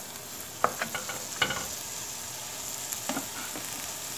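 Camel meat, chopped tomatoes and onion sizzling in a hot pot while a wooden spoon stirs them, with a few sharp knocks of the spoon against the pot.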